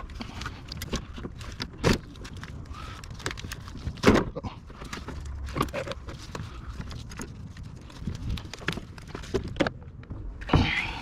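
Irregular clicks and knocks of hand work in a car's engine bay as the battery and its parts are handled, with three louder thunks about two, four and ten seconds in, over a steady low rumble.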